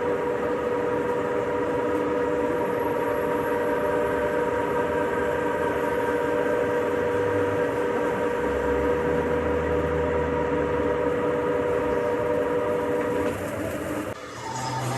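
Metalworking machine running steadily with a high, even whine over a grinding noise, as it machines steel gear stock; it winds down about thirteen seconds in.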